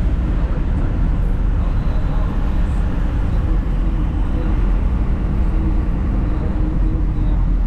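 Steady road traffic noise with a heavy, even low rumble and no distinct events.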